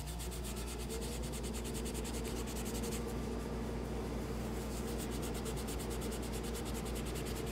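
Steel wool scrubbing the steel slide of a Kel-Tec P3AT pistol in short back-and-forth strokes, a steady scratchy rasp as it takes off the last of the surface rust.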